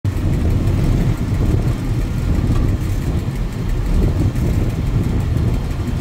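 Diesel train running along the track: a steady low rumble of wheels on rail and engine.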